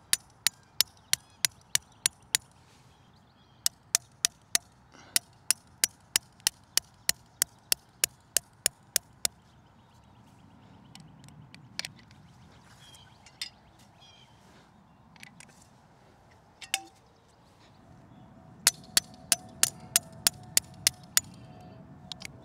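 Steel DOGYU KFH08 hammer striking a metal tent stake in turf, with quick sharp knocks about three a second for most of the first half. A few lone knocks follow, then a second quick run near the end.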